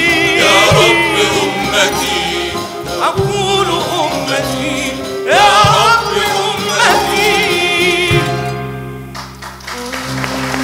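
A male solo singer sings an ornamented Arabic vocal line with a wavering, vibrato-laden voice, backed by a choir and instruments. Near the end the voice falls away and held instrumental tones are left.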